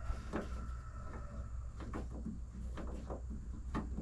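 Scattered light clicks and knocks of a hand tool working a Torx screw out of a pickup's tailgate camera mount, over a steady low hum.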